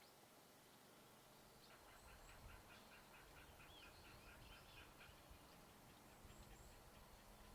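A wild bird calling faintly: a quick run of short repeated notes, about four or five a second, lasting roughly three seconds from about two seconds in. A few thin high notes sound at other moments.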